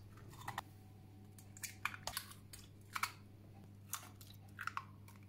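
Eggs being cracked against the bowl and dropped into creamed butter and sugar: a series of faint, sharp shell cracks and taps spaced irregularly about a second apart.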